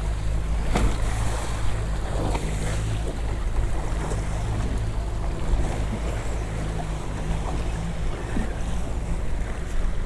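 Small boat's engine running steadily, with wind on the microphone and waves around the hull.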